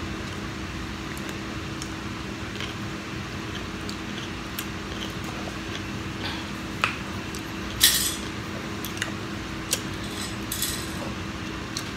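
Quiet eating at a table: scattered small clicks and taps, with a brief rustle about eight seconds in, over a steady low hum.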